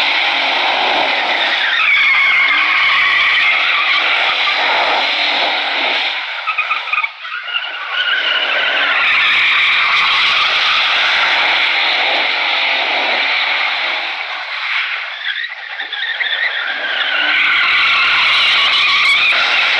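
Pickup truck doing donuts: its rear tires squeal and skid continuously on asphalt. The squeal dips briefly twice, once about a third of the way in and again past the middle.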